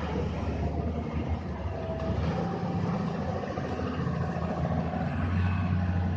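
Heavy diesel engine of a loader or truck running steadily, its note changing about two seconds in.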